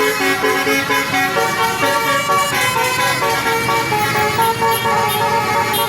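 Indonesian 'telolet' bus horn, a set of air-horn trumpets, playing a quick tune of stepped notes, with several tones sounding at once.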